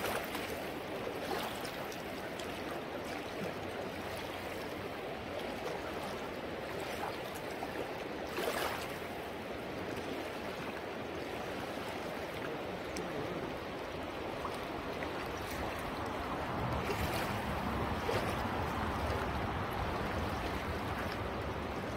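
Swift river current rushing steadily, with two brief louder swishes and a fuller low rumble in the last few seconds.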